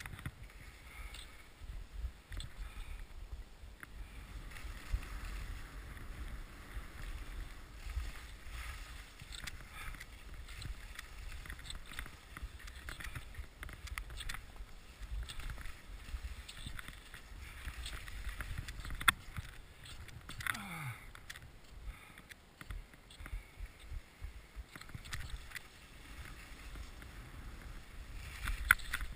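Skis sliding and scraping over packed snow at speed, with a low wind rumble on the GoPro and scattered sharp knocks as the skis hit bumps.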